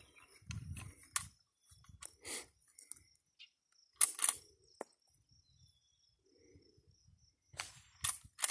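Scattered clicks and knocks of an 1873 Winchester lever-action rifle being handled and shouldered, loudest a pair of sharp clacks about four seconds in. A faint high steady tone runs through the middle.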